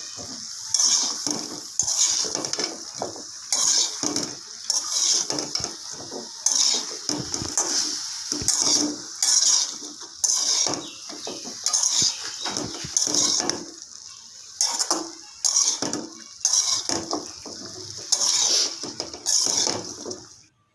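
Bottle gourd pieces and lentils being stirred in a sizzling pan: a utensil scrapes the pan in repeated strokes about once a second, over a steady frying sizzle. The sound cuts off suddenly near the end.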